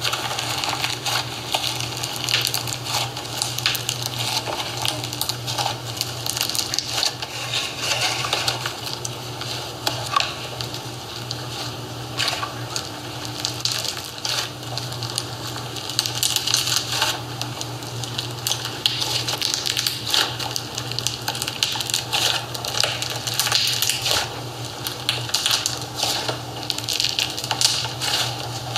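Iceberg slime being poked and squeezed, its dried shaving-foam crust crunching and crackling in a constant run of small clicks and pops, over a steady low hum.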